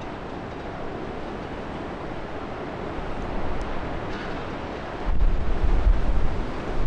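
Storm wind rushing steadily across the microphone, then buffeting it with a heavy low rumble from a strong gust about five seconds in.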